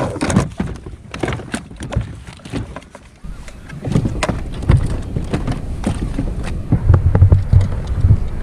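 Handling noise on a plastic fishing kayak: a run of sharp clicks and knocks, then from about three seconds in a louder steady low rumble with irregular low thumps.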